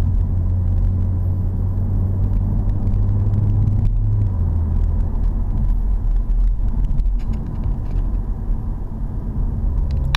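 Audi S4 B9 Avant's V6 engine heard from inside the cabin while driving, a steady low drone under load that drops away about four and a half seconds in, leaving mostly a lower tyre and road rumble as the car eases off.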